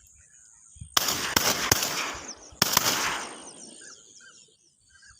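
Shotgun firing at ducks: a sudden blast about a second in, with a couple of sharp reports close behind it, then another blast a little past the middle. Each one trails off in a long, rolling fade.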